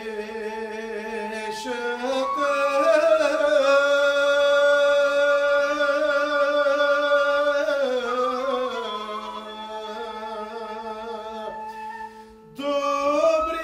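Male voice singing a slow Bulgarian folk song in long held phrases, the pitch wavering with ornaments, over instrumental backing. The sound dips briefly near the end before a new phrase begins.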